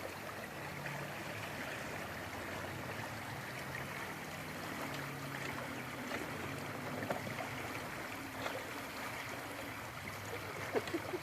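Rain-swollen creek flowing steadily, a constant rushing wash of water.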